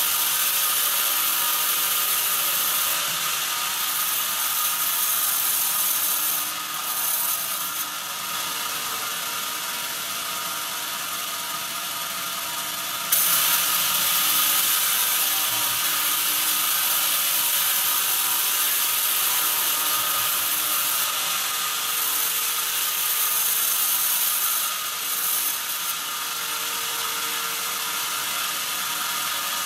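Band sawmill blade cutting lengthwise through a thick timber beam on its carriage: a steady, high sawing hiss over the machine's running noise. It is quieter for several seconds in the middle and louder again from about halfway through.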